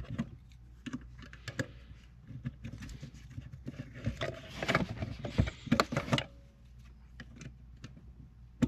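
Irregular small clicks, taps and scrapes, busiest around the middle, as a mini flathead screwdriver pries at the plastic plugs and locking tabs of the wiring harness on a 1999 Honda Civic's engine computer (ECU) to unplug them.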